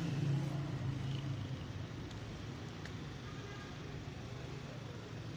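Low engine hum of a nearby motor vehicle, fading away after about two seconds.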